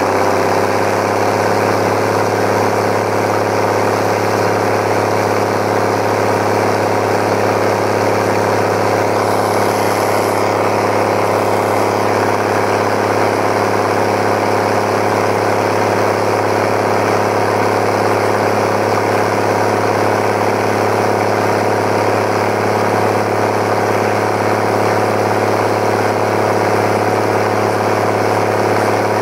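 Mercedes-Benz MB-trac 1100 turbo's OM 366 A six-cylinder turbodiesel running loud and steady at a constant speed, close up.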